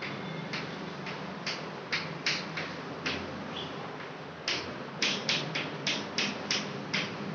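Chalk writing on a chalkboard: a string of short, sharp chalk strokes and taps, spaced out at first, then coming faster about four and a half seconds in.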